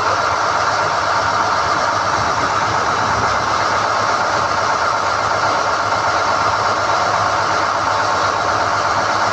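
SDH-1600 core drilling rig's engine running loud and steady, with an even mechanical drone that holds the same pitch throughout.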